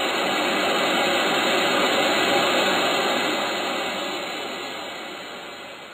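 White noise from a Ray Wilson MFOS SoundLab Mini Synth, run through a resonant filter and shaped by slow attack and release on repeat, imitating ocean waves on a beach. It swells up over about two and a half seconds, then fades away towards the end, like a wave coming in and going out.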